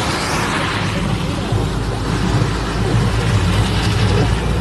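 Steady vehicle and road noise: a low rumble under a broad hiss.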